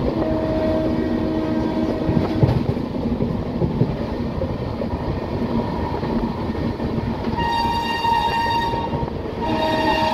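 LHB passenger coach running at speed, heard through the open door as a steady rumble of wheels on track. About seven and a half seconds in, the WAP-5 electric locomotive's horn sounds a long blast, breaks off briefly, then sounds again as the train runs through a station without stopping.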